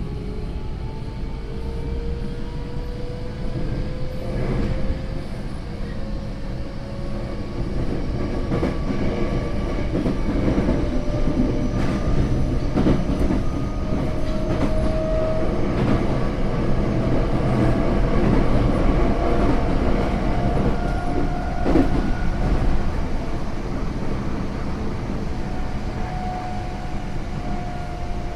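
Tokyo Metro 08 series electric train under way: the Mitsubishi IGBT-VVVF inverter and traction motors whine in several tones that rise in pitch as the train picks up speed, then level off. Rumble and wheel clicks over rail joints run underneath.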